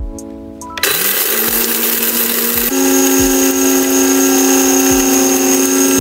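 Siroca coffee maker's built-in grinder running, grinding coffee beans: a loud, steady whirring grind that starts about a second in and shifts to a higher, steadier pitch about halfway through, over background music with a steady beat.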